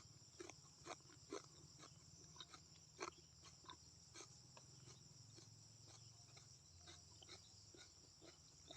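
Faint chewing of banana stem core: irregular wet mouth clicks and smacks, a few a second, stronger in the first few seconds and softer after that.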